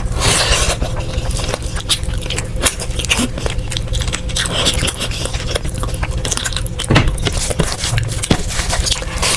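Close-miked eating of curry and biryani: chewing with many short wet mouth clicks, and some scraping. A faint steady hum runs underneath.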